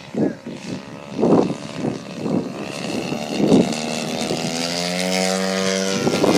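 Small model-aircraft engine with propeller: a few uneven bursts at first, then from about halfway it runs steadily, rising gradually in pitch and growing louder.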